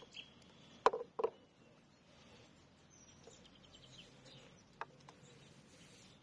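A few sharp clicks as hands work bait into the hopper of a small radio-controlled bait boat: two close together about a second in, another near the end. Small birds chirp faintly in between.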